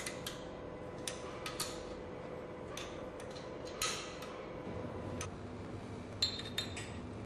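Irregular metallic clinks and taps of hand tools and steel parts during reassembly of a progressing cavity pump, the loudest about four and about six seconds in, over a faint steady hum.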